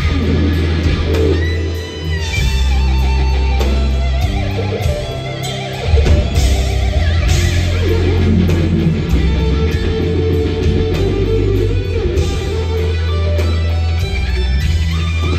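Live rock instrumental: an electric guitar plays a sustained lead with gliding, bent notes over bass and drums with cymbals.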